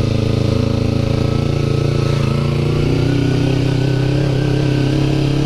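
Kawasaki Ninja 250R parallel-twin engine running steadily at low, even revs as the bike is ridden slowly along a dirt track.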